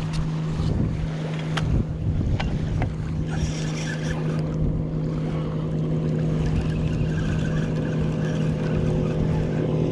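Motorboat engine running steadily as a boat passes on the water, over wind on the microphone. A few sharp clicks in the first three seconds come from the rod and spinning reel being handled.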